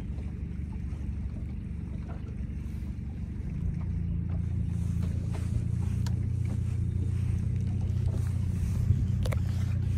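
Boat's outboard motor running at low speed, a steady low hum that grows louder about three and a half seconds in.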